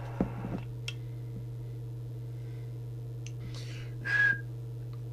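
A short whistle into the CB radio's microphone, one steady high note lasting under half a second, about four seconds in, used as a test tone to check the transmitter's FM deviation. It sounds over a steady low hum.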